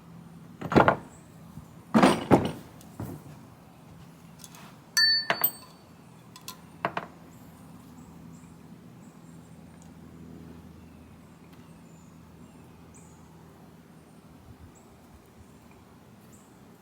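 Metal engine parts knocking and clinking as they are handled and set down: several knocks in the first seven seconds, one with a short metallic ring, then only a faint low hum.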